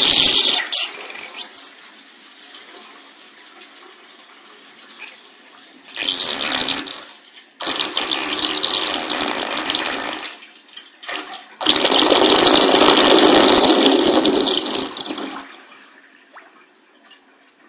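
Water draining out of a bathtub: several loud surges a few seconds long with quieter stretches between, dying away near the end.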